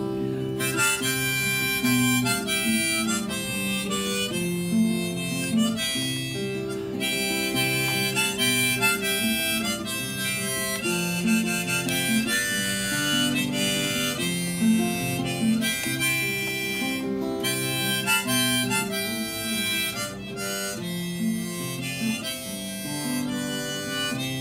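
Harmonica solo over a strummed acoustic guitar: an instrumental break in a folk song.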